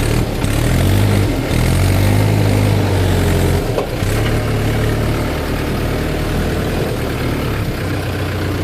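Heavy diesel engine of earthmoving or farm machinery running steadily close by, its note dipping briefly about four seconds in and then carrying on a little lower.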